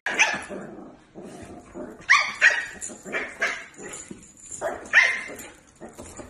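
A dog barking: a series of short, high-pitched barks with brief pauses, a cluster in the middle and another near the end.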